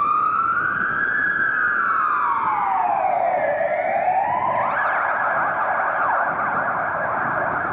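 An emergency vehicle's electronic siren: a slow wail rising and falling in pitch, switching about five seconds in to a fast yelp.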